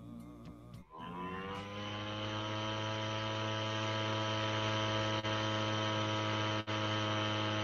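A single long held note, rich in overtones, swelling in with a slight rise in pitch about a second in and then held steady, played back over a video call. It briefly drops out twice.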